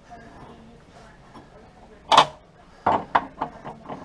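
Chrome tap housing and fittings clicking and knocking as they are handled and fitted back onto a wall-mounted kitchen tap during a washer change. There is a sharp click about two seconds in, then a quick run of lighter clicks.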